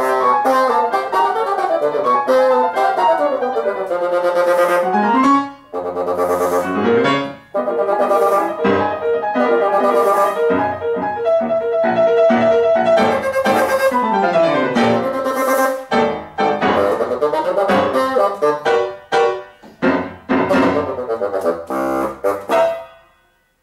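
Bassoon and piano playing a fast toccata: quick runs of notes rising and falling, punctuated by sharp piano chords. The music breaks off sharply a few times toward the end, then stops near the close on the piece's final chords.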